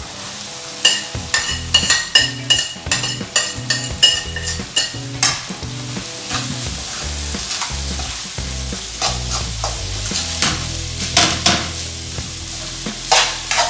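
Metal spoon clinking and scraping against the plate and aluminium wok, a quick run of ringing knocks in the first few seconds as cooked rice is knocked into the pan. Then the spoon scrapes and stirs the rice through the frying egg and aromatics, with a steady sizzle underneath.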